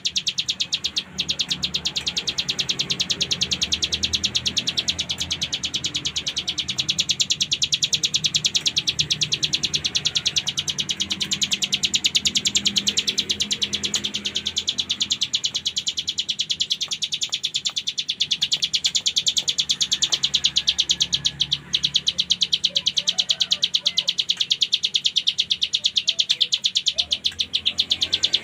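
Ciblek gunung (a prinia) singing its 'ngebren' song, a fast, unbroken, high rattling trill of rapid repeated notes. It breaks off briefly about a second in and again about 22 seconds in.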